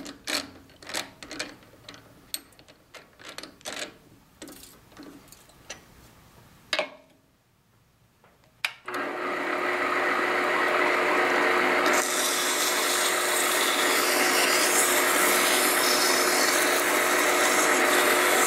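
Scattered metallic clicks and clinks as a metal lathe's chuck key tightens the jaws on a brass workpiece. About nine seconds in the lathe starts and runs steadily, and from about twelve seconds in sandpaper hisses against the spinning brass ball end.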